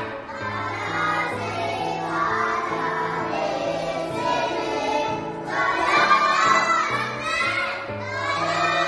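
A song sung by a group of children's voices over an instrumental backing track with held bass notes.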